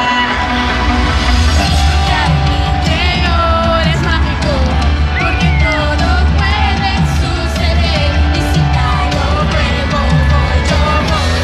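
Live pop concert music played loud over an arena sound system, heard through a phone's microphone: a heavy bass line that comes in right at the start under a sung vocal line, with yells from the audience.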